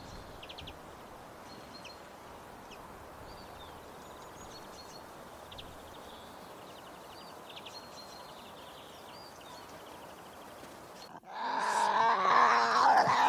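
Steady outdoor background noise with faint, short high-pitched chirps scattered through it. About eleven seconds in, a loud pitched animal call with several overtones begins, a dog vocalizing.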